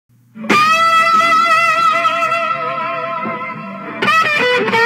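Isolated electric lead guitar track through a Soldano SLO-100 amplifier. A single long note comes in about half a second in and is held with an even finger vibrato, then a quick run of notes follows near the end.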